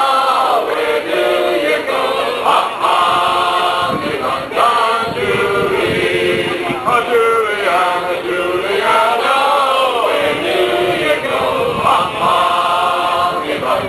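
A group of men singing together in chorus, the voices held and gliding through the melody without a break.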